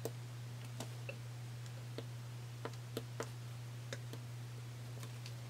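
Light, irregular taps and clicks of a stylus on a tablet's glass screen while writing a number, over a steady low hum.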